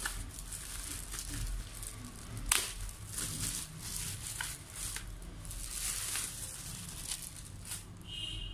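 Clear plastic bag crinkling and rustling in irregular crackles as a keyboard is pulled out of it, with one sharper crackle about two and a half seconds in.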